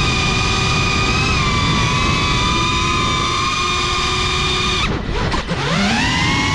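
Brushless motors of a GEPRC CineLog 35 FPV drone whining at a high, steady pitch over a low rush of air. About five seconds in the whine drops away sharply as the throttle is cut, then rises back up as the throttle is opened again.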